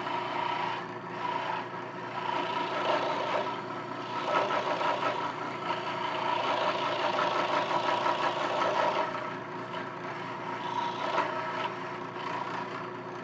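Scroll saw running with its blade cutting through a wooden workpiece along an inside cut, a steady motor hum under a fast rasping cut that swells and eases several times as the piece is fed and turned.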